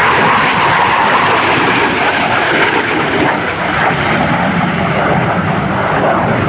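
Jet noise of an AV-8B Harrier II's Pegasus turbofan flying past, a loud, steady rushing sound that holds throughout.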